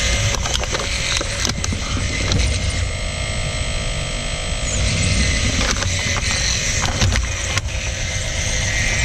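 Radio-controlled excavator's electric motors and gearing whining as it works. The whine changes in pitch and strength a few times as its movements start and stop, with several sharp clicks and knocks along the way.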